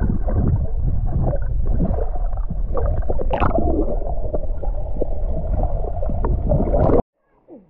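Muffled underwater rumble and gurgling of water picked up by an action camera held under the surface of a bathing pool, with swimmers stirring up bubbles around it. It cuts off abruptly about seven seconds in.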